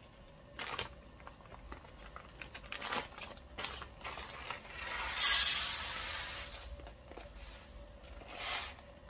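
Plastic sample bag crinkling and rustling with a few sharp clicks, then a dense rattling rush of green coffee beans poured out, loudest about five seconds in and lasting about two seconds.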